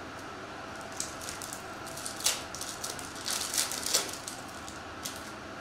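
Foil trading-card pack wrapper being handled and torn open by hand. It crinkles and crackles in short irregular spurts from about a second in, loudest at about two and four seconds in.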